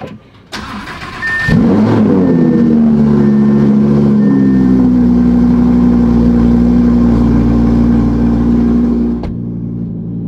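Cold start of a 2017 Audi R8 V10 plus's 5.2-litre V10 through a Capristo exhaust: the starter cranks briefly, the engine catches about a second and a half in with a rev flare that falls back, then settles into a loud, steady high idle that sounds mean. A high dashboard chime beeps about once a second in the first few seconds, and the engine's level drops suddenly near the end.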